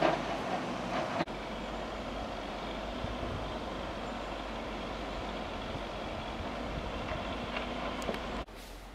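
Steady rumble of passing vehicle traffic, broken by an abrupt cut about a second in, then dropping away sharply near the end.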